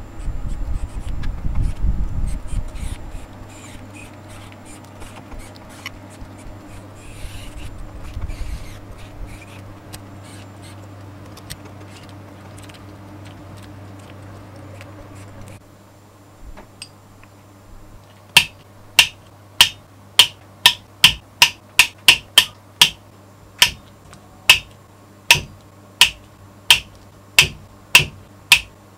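Small-parts assembly work on a miniature metal V8 engine model with a mini electric screwdriver. It starts with loud handling knocks and then a steady low hum. From about two-thirds of the way in comes a regular run of sharp, loud clicks, one to two a second.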